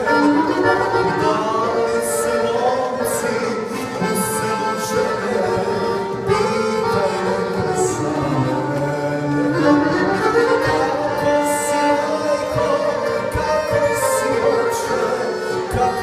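Accordion, violin and bagpipe playing a traditional folk tune together.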